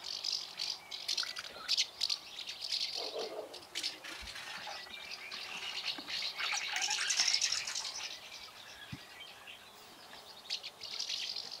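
Small clicks and scraping from hands working with a bottle and containers over a bucket, with birds chirping in the background.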